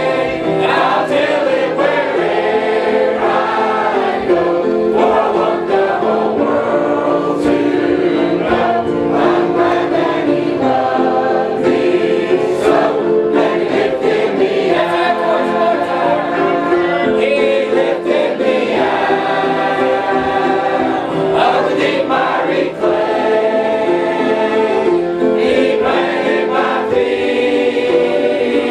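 Many voices singing a gospel hymn together in sustained, steady notes.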